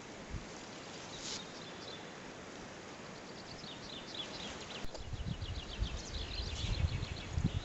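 A small songbird singing in quick, high, repeated chirps and trills over a steady outdoor hiss. From about five seconds in, low rumbling thumps come in under it and are the loudest sound.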